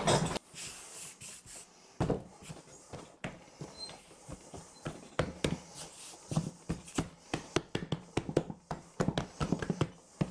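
Hands kneading soft gözleme dough, pressing and slapping it against the bowl and the table: irregular soft slaps and thuds, with a louder thump about two seconds in and quicker strokes in the second half.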